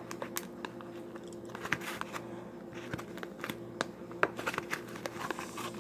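Slime being squished and kneaded by hand inside a clear plastic container, giving irregular small sticky clicks and crackles.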